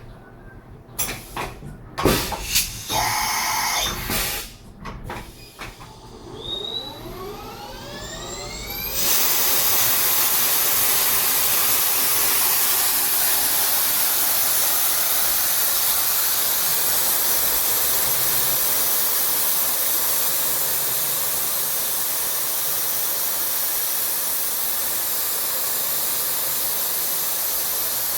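CNC machining center working a Ford 6.4L diesel piston: a few clunks and knocks, then a rising whine as the spindle speeds up, and from about nine seconds in a loud, steady hiss as the machine runs.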